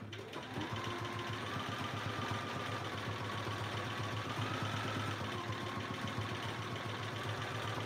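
Domestic sewing machine running steadily at speed during free-motion quilting, a smooth motor hum with the needle stitching continuously. Its motor tone rises a little about a second in and drops slightly around five seconds in as the stitching speed changes.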